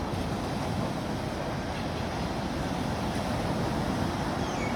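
Sea waves: a steady, even rush of surf.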